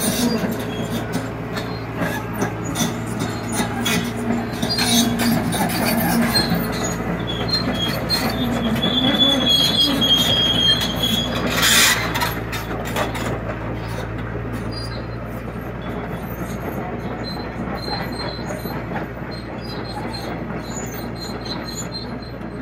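Liebherr 936 crawler excavator travelling on its steel tracks: the diesel engine runs steadily under the clanking and squealing of the track links. A thin squeal rises around ten seconds in and a sharp clank comes about twelve seconds in, after which the sound slowly grows fainter as the machine moves away.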